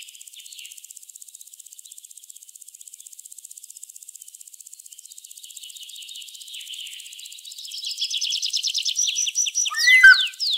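High, faint insect chirring, joined in the last few seconds by a bird's rapid repeated chirps, a short call and a few quick falling whistled notes.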